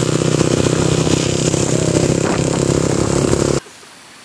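Small motorcycle and scooter engines running steadily while riding along a road, mixed with rushing wind and road noise; the sound cuts off suddenly about three and a half seconds in, leaving only faint background.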